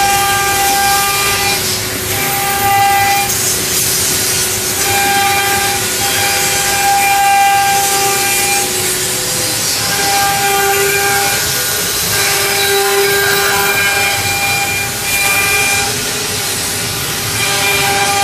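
Six-spindle CNC router carving wood: the spindles whine at several steady pitches that cut in and out every second or two as the heads work, over a continuous hiss of cutting.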